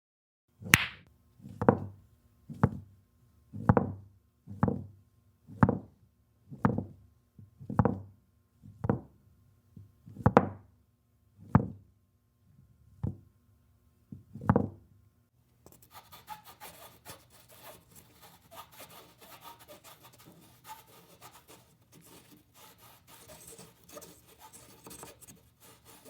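Billiard balls knocked one after another, about thirteen sharp clacks a second apart, each with a short low rumble after it. From about sixteen seconds in, a continuous scraping and rubbing on the pool table follows.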